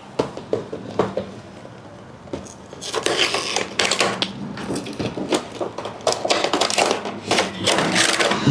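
Product packaging being pulled open by hand: a few sharp clicks and knocks at first, then from about three seconds in a dense run of rustling, crinkling and tearing.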